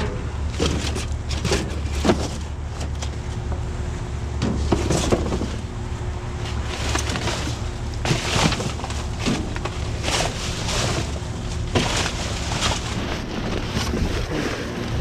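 Scrap and debris in a metal dumpster being poked and dragged with a stick: irregular knocks, clunks and scrapes, some of them stuck frozen to the bottom. A steady low rumble runs underneath.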